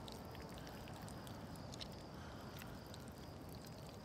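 Quiet night-time background: a low steady hum with a few faint soft ticks, and no distinct event.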